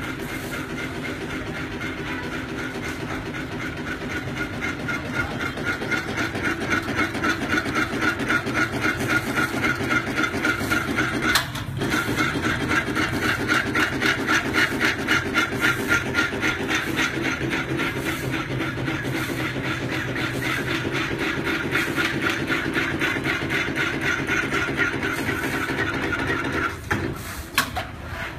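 Dobosen CNC channel-letter bending machine running, its motors feeding and bending metal strip with a steady, rapidly pulsing whine. The sound cuts out briefly about a third of the way in, then stops near the end, followed by a couple of sharp clicks.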